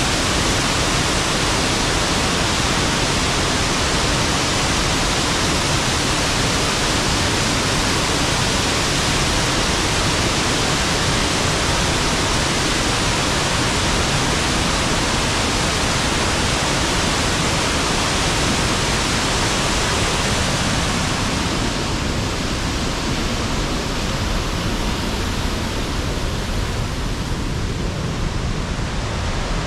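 Waterfall: a steady, loud rush of falling water, growing a little quieter and duller about three-quarters of the way through.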